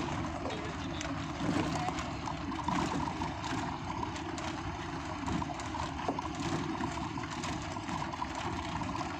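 A vehicle driving slowly over a rough dirt track, heard from inside the cab: a steady rumble of engine and tyres on gravel, with scattered knocks and rattles as it bumps along.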